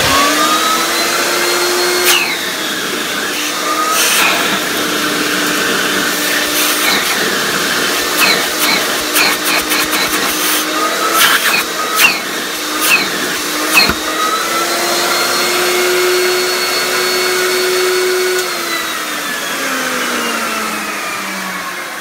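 1984 MD Model B2 central vacuum power unit running with a loud motor whine, suction at its top inlet. Its pitch shifts as the inlet is covered and uncovered by hand, with a run of sharp clicks and pops in the middle stretch, and over the last few seconds the whine falls steadily in pitch as the motor winds down.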